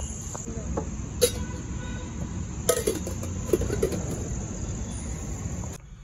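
Crickets trilling in one steady high-pitched note over a low background rumble, with a few sharp clicks and clinks; the trill stops near the end.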